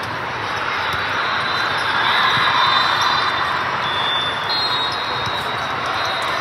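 Gymnasium din during a volleyball game: a steady, echoing hubbub with short high squeaks like sneakers on the court floor and the thump of the ball.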